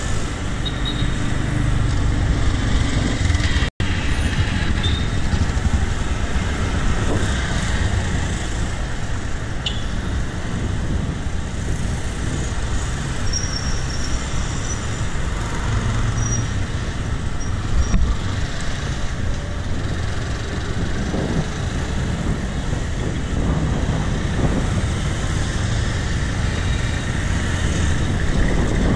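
Steady road traffic noise with a low rumble, heard from a bicycle riding along a road. The sound cuts out for an instant about four seconds in.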